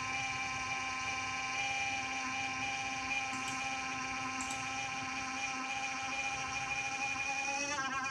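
Cooling fan in a Q-See QC808 security DVR running with a loud, steady whine made of several tones, which waver in pitch near the end. This is the intermittent loud fan noise that is the recorder's fault.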